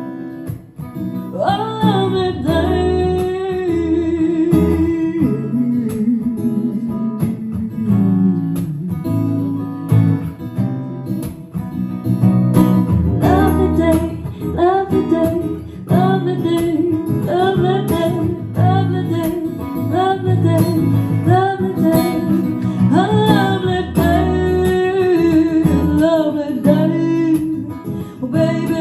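A female singer's voice and an acoustic guitar performing live, the voice sliding through melodic runs over the strummed and picked guitar chords.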